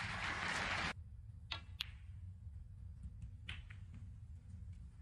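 A brief rush of noise that cuts off abruptly about a second in, then sharp clicks of snooker balls: the cue tip striking the cue ball and balls colliding as a red is potted, with a couple more clicks a little later.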